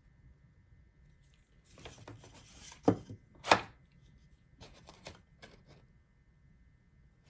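Handling noise of a digital caliper and paper on a workbench: a short rustle of paper, then two sharp scraping strokes about half a second apart, followed by a few light clicks.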